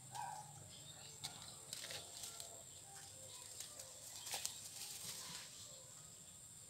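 Faint rustling and light clicks of hands handling a fishing line and hook among dry leaves, with a few sharper ticks a little past four seconds in. A steady high-pitched hum runs underneath.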